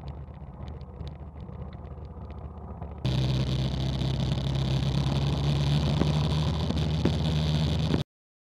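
Small 125cc single-cylinder four-stroke mini bike engine running at low revs. About three seconds in, an abrupt cut brings it in much louder at riding speed, a steady drone with wind and road rush over it. The sound cuts off just before the end.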